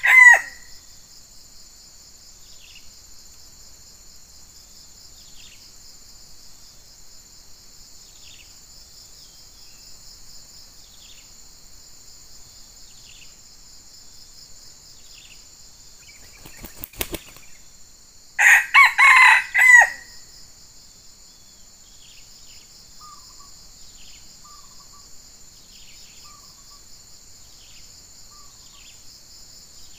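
Red junglefowl rooster crowing: a short, clipped crow about two-thirds of the way through, with the end of another crow at the very start. Underneath runs a steady high insect drone with faint, scattered bird chirps.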